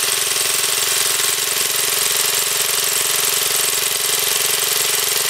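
Older Briggs & Stratton single-cylinder gas engine running steadily, belt-driving a GM alternator wired as a self-energized generator.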